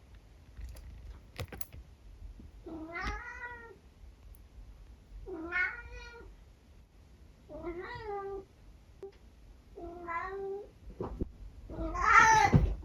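Tabby cat meowing five times, about every two and a half seconds, with the last call the loudest. A few sharp clicks come about a second in.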